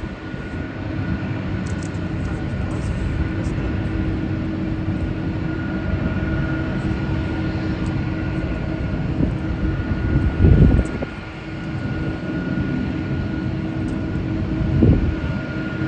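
Jet airliner engines running with a steady rush and a thin, constant high whine. Two brief low rumbles rise over it, about ten and fifteen seconds in.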